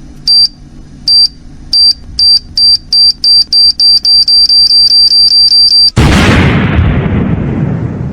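Time-bomb sound effect: short, high electronic beeps that come faster and faster, then an explosion about six seconds in that fades slowly.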